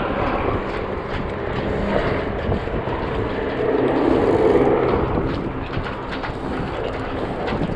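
Water-scooping firefighting aircraft flying overhead: a steady propeller-aircraft drone that grows a little louder about four seconds in.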